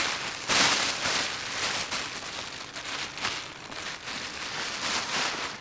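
Crinkling and rustling of plastic packaging being handled, an uneven crackly noise that comes and goes, loudest in the first couple of seconds.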